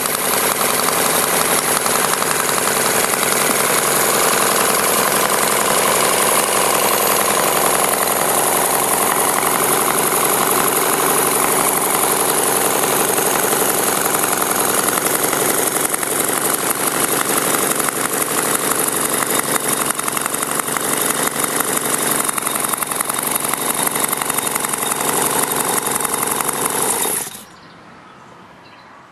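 Miniature six-cylinder boxer (flat-six) model engine running steadily with a fast, even firing beat. The sound cuts off abruptly about 27 seconds in.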